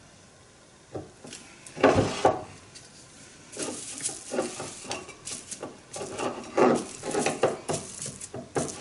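Foam brush scrubbing wood glue across a wooden board in repeated short strokes, starting about three and a half seconds in. A knock on the workbench comes about two seconds in.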